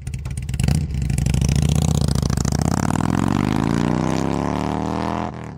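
Motorcycle engine revving, its pitch rising steadily for a few seconds before cutting off suddenly near the end.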